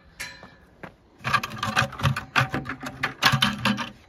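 Rapid, irregular crunching and clicking footsteps over snow-crusted frozen ground, starting about a second in, while a bucket of water is carried.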